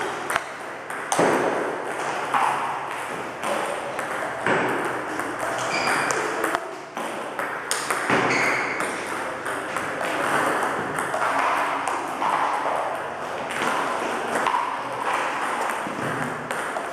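Table tennis multiball drill: balls fed in quick succession, each click of a bat striking a ball and a bounce on the table following closely on the next, as the two players keep the rally going.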